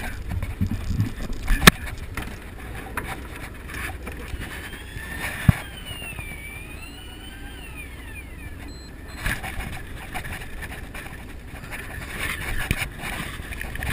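Wind and sea noise over the low rumble of a fishing boat, with two sharp knocks and, midway, a whine that rises and falls for about three seconds.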